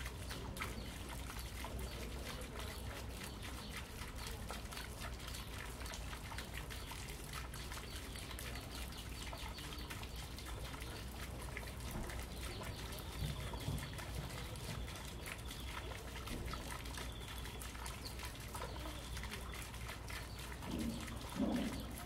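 Small garden fountain trickling and splashing steadily into a shallow pond.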